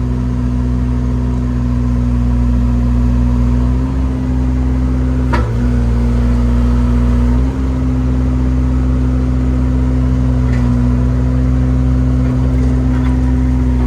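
Excavator's diesel engine running steadily while the machine digs and swings, its pitch dipping briefly a few times as the hydraulics take load. There is a single sharp knock about five and a half seconds in.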